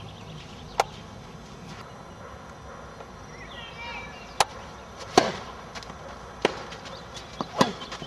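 Tennis ball struck by rackets and bouncing on a clay court during a doubles rally: about five sharp pops spaced irregularly, a second or more apart.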